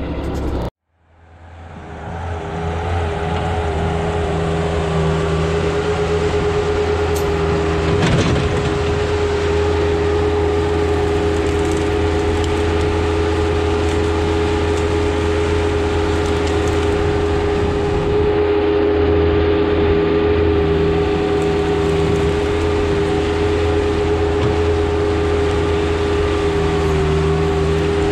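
Bobcat S185 skid steer's diesel engine running steadily, with a steady whine over it. It fades in after a short break about a second in.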